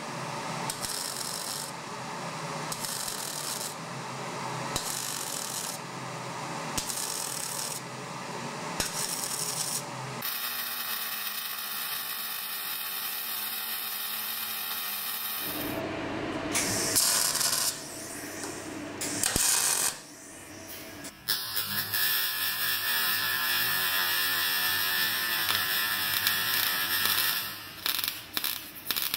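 MAG welding arc crackling and sizzling as the torch runs a bead on thin steel plate, in several separate runs. In the first stretch the hiss cuts in and out about once a second, and near the end it breaks into rapid separate pops.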